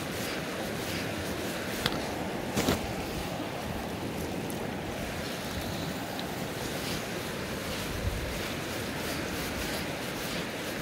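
Steady rush of a flowing river, with a few sharp clicks about two to three seconds in.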